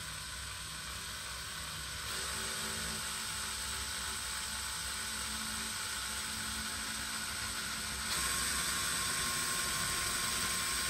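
Handheld electric drill running continuously with a steady whine as a twist bit bores a peg hole through a small piece of wood. The drill gets louder about two seconds in and again near the end, as it bears down harder in the cut.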